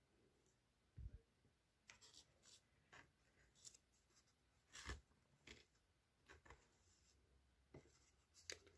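Near silence broken by scattered faint clicks and rustles, about a dozen in all: a paper index-card stencil and a metal alligator clip being handled and lined up by hand.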